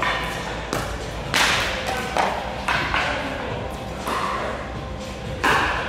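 Sharp pops of pickleball paddles hitting plastic balls, several in irregular succession, the loudest about a second and a half in and again near the end.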